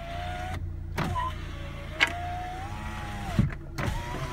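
Power window of a 2010 Mazda Miata door running, its motor whine rising and falling in pitch, stopping briefly twice, with sharp clicks along the way. It is an abnormal window noise, "no good" and not how it should sound, following body repair on the door; the owner wonders whether it is tied to the mirror wiring.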